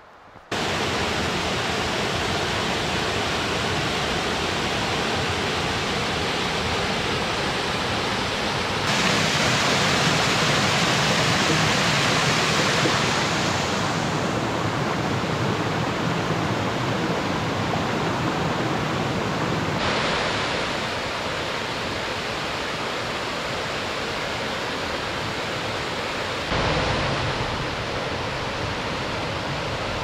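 Rocky mountain stream rushing over stones and small cascades, a steady rush of water that jumps abruptly in loudness a few times.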